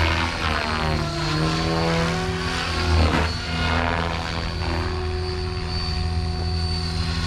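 Electric RC helicopter (Oxy5 on 6S, XNova 4025 motor, SAB 570 mm blades) in aerobatic flight, its rotor blades whirring with a motor whine. The pitch sways up and down as it swoops and changes direction, then settles to a steady tone about five seconds in.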